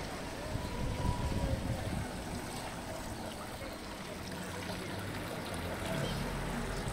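Outdoor ambience: a steady rushing noise with uneven low rumble, and faint distant voices.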